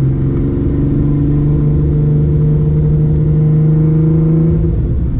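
Nissan R32 Skyline GT-R's RB26 straight-six, converted to a single big BorgWarner turbo, running during a road-tuning drive, heard inside the cabin. Its note rises at the start, holds steady and drops away shortly before the end.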